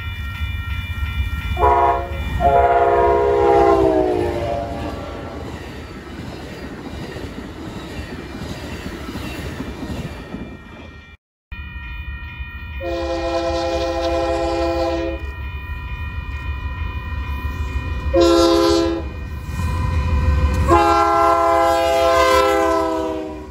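Two trains sounding their air horns as they pass, with diesel engine rumble and wheel noise. The first gives a short blast and then a longer one that drops in pitch as it goes by. After a cut, Union Pacific 7181, a GE C44ACM leading an eastbound mixed freight, sounds a long blast, a short one and a long one, the last dropping in pitch as the locomotives pass close.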